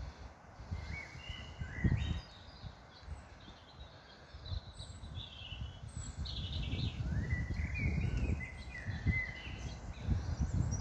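Small birds chirping and singing in short gliding phrases, over an irregular low rumble.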